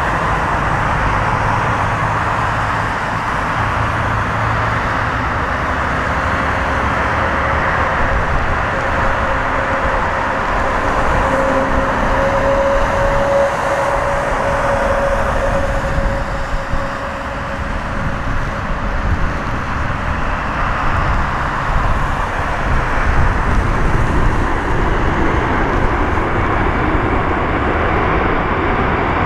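Jet airliner engine noise: a Boeing 747-400 landing and rolling out, with a second airliner taxiing close by. A steady engine whine sits in the middle stretch, and the noise swells about three-quarters of the way through.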